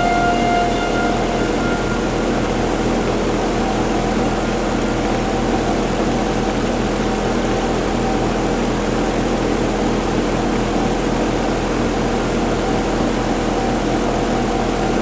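Federal Signal outdoor warning sirens sounding a steady alert for a severe thunderstorm warning. One siren's tone fades after the first second or two and comes back up near the end, over a steady low drone.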